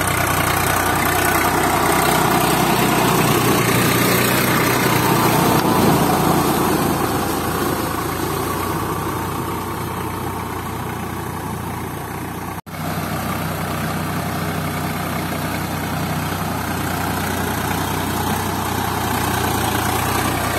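Swaraj 744 FE tractor's three-cylinder diesel engine running steadily under load, driving a rotary tiller through flooded paddy mud. The sound drops out for an instant a little past the middle.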